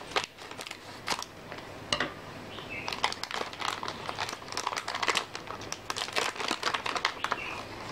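Plastic anti-static bag crinkling and crackling as it is snipped with scissors and then pulled open by hand: a few separate crackles at first, then a dense run of crinkling through the middle.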